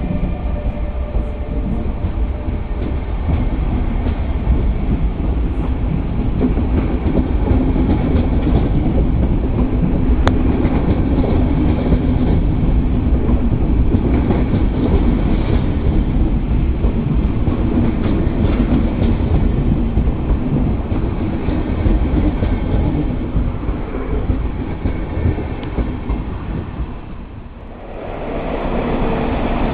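Passenger train coaches rolling past close by: a steady loud rumble of wheels on rail with some clickety-clack. Near the end the sound dips briefly, then another train's rumble starts.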